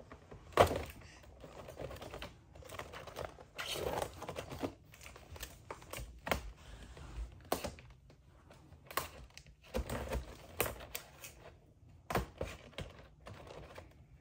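Irregular clicks, taps and rustles of hands working at a boxed doll's plastic and cardboard packaging. The sharpest click comes about half a second in.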